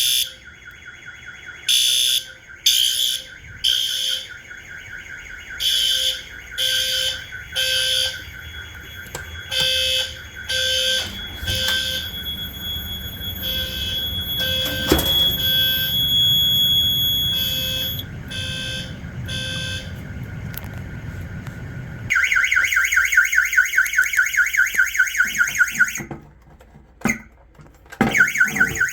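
Fire alarm horns sounding in the code-3 temporal pattern: groups of three short blasts with a pause, repeating about every four seconds. About 22 seconds in, a louder, fast-pulsing alarm sound takes over for about four seconds, then the alarm stops.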